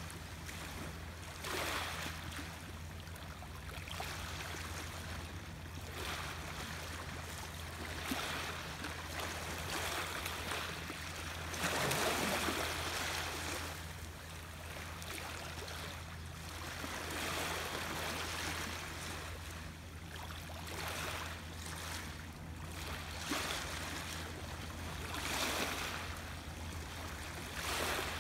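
Small waves washing and lapping on open water, swelling and fading every few seconds, with the biggest swell about twelve seconds in. A steady low hum runs underneath.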